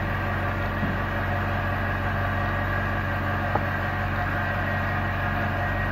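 Steady mechanical hum of running workshop machinery, with a faint click about three and a half seconds in.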